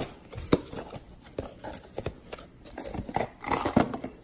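Small cardboard box being handled and opened on a table: scattered knocks and taps with cardboard rustling, busiest near the end.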